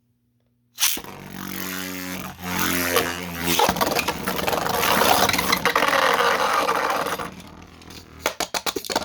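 Two Beyblade spinning tops, one of them a 3D-printed Molt Brutus, launched into a stadium with a sudden rip of the string launcher. They whir with steady tones, then clash and scrape loudly against each other for a few seconds. Near the end they give a quick run of rattling clicks.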